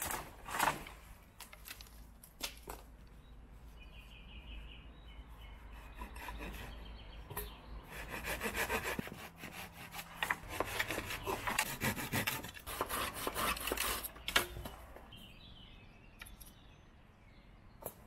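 Silky folding hand saw cutting through a dead wooden pole: rasping back-and-forth strokes, a few at first, then a fast steady run in the middle that is the loudest part, dying away near the end.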